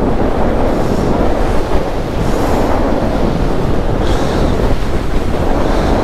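Strong wind rushing over the microphone in flight under a paramotor wing in a wind storm: a steady heavy rumble with a brighter hiss swelling about every second and a half.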